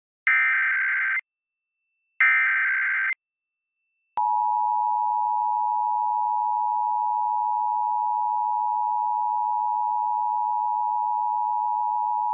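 Emergency Alert System monthly test on broadcast TV audio: two short, shrill digital data bursts of the SAME header, about a second each, then about four seconds in the steady two-tone EAS attention signal starts with a click and holds.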